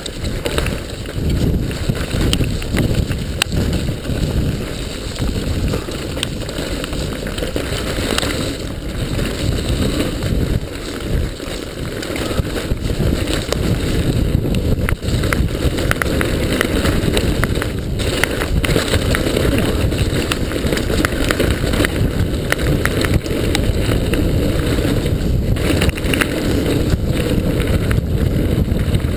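Mountain bike descending a dirt trail at speed: a steady rumble of wind on the microphone and tyres on dirt, with frequent rattles and knocks from the bike over the rough ground.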